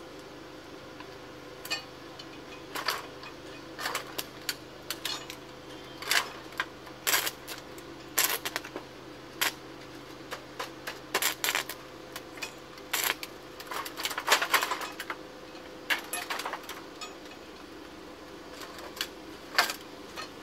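Irregular sharp metallic clicks and clinks, singly and in short clusters, as steel exhaust pipe pieces and a welding electrode knock against each other while the pipe is positioned for welding, over a steady faint hum.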